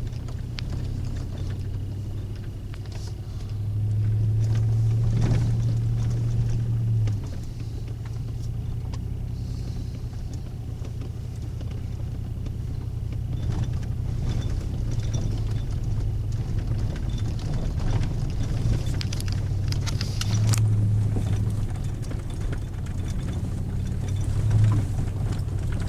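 Vehicle engine and road noise heard from inside the cab while driving a rough road: a steady low drone that swells for a few seconds about four seconds in and again briefly later, with scattered knocks and rattles.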